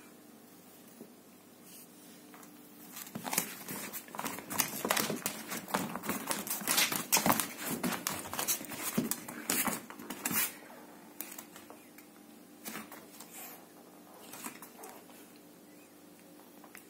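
A hairless cat scrambling and pouncing on a carpet after a cord toy: a dense run of quick paw scuffs, pats and thumps from about three seconds in to about ten, then a few scattered thumps.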